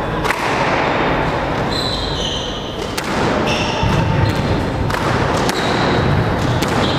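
A squash rally: a string of sharp knocks as the ball is struck by the rackets and hits the walls, with short high squeaks of court shoes on the wooden floor.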